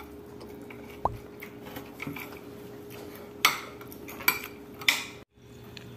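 Metal spoons clinking and scraping against dinner plates as people eat, with a few sharp clinks from about three and a half seconds in, over a faint steady hum.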